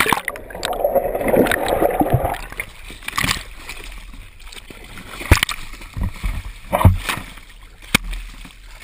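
Sea water splashing and gurgling around a kayak-side camera as it dips under the surface and comes back up, with a dense rush of bubbling in the first two seconds and several sharp knocks later on.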